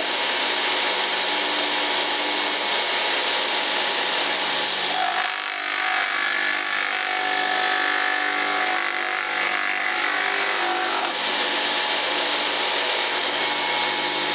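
Homemade disc sander, driven by a 1.6 hp electric lawn mower motor, running steadily while a curved piece of wood is pressed against its spinning abrasive disc and sanded, giving a steady motor hum under a rasping hiss of sandpaper on wood.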